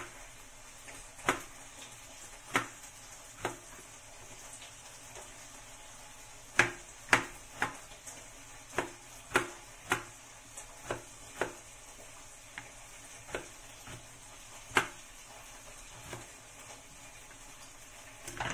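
Chef's knife slicing eggplant on a white cutting board: irregular sharp knocks of the blade hitting the board, coming in a quick run around the middle.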